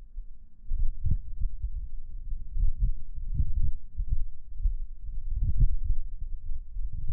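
Wind buffeting the microphone: an uneven low rumble that swells and drops in gusts.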